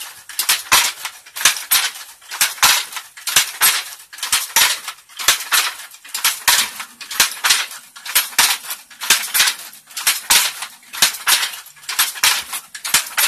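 Wooden handloom being worked in a steady rhythm: the shuttle clacks across and the batten knocks the weft home, in quick clattering groups about three times every two seconds.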